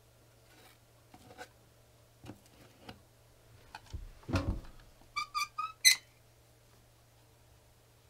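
Caulking gun being handled and worked: light taps and knocks, a dull thump about four seconds in, then four quick metallic clicks with a short ringing tone, the last the loudest.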